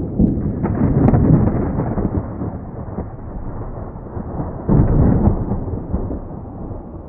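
Deep, muffled rumbling that swells about a second in and again near five seconds, then slowly fades.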